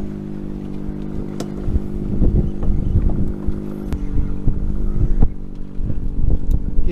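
A fishing boat's motor drones steadily, with scattered knocks and taps on top.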